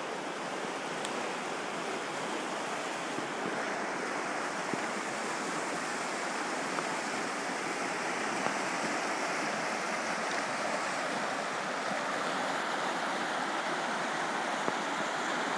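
Mountain river rushing over rocky rapids: a steady, even rush of water.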